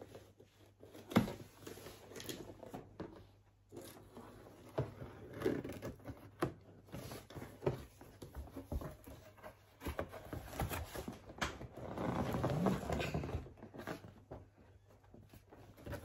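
A knife slitting the packing tape on a cardboard box and the cardboard flaps being pulled open, with irregular knocks, scraping and tearing, and paper rustling near the end.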